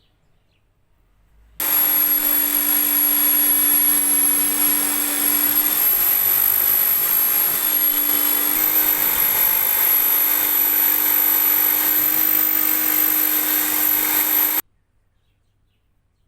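An electric power tool running steadily, with a high whine over a noisy hiss, switched on abruptly and running for about thirteen seconds before stopping abruptly.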